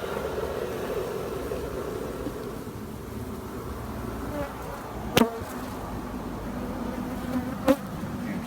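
Swarm of Africanized honey bees buzzing in a steady hum around a disturbed hive. Two sharp clicks stand out in the second half, about two and a half seconds apart.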